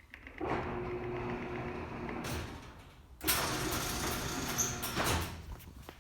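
Garage door opener motor running and the door rolling along its track, in two runs: the second starts suddenly just after the first stops, about three seconds in.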